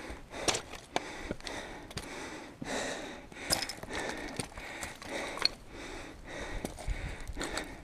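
Footsteps on loose slate scree, stones clinking and scraping underfoot with many short sharp clicks, along with the walker's breathing as he climbs.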